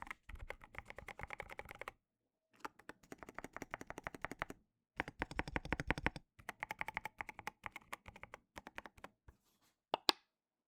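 AKKO MU02 walnut wooden mechanical keyboard being typed on fast in a sound test: quick runs of key clicks and clacks in four bursts with short pauses between them, then a few louder single key strikes near the end.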